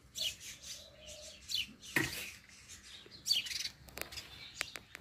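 Many small birds chirping and twittering in short, scattered calls, with a few sharp clicks a little before the end.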